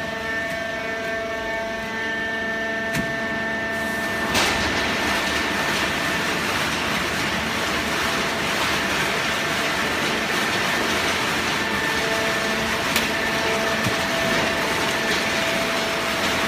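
Hydraulic baling press running, its motor and pump giving a steady whine of several tones. About four seconds in there is a click, and the machine turns louder and noisier, with a rushing hiss over the whine.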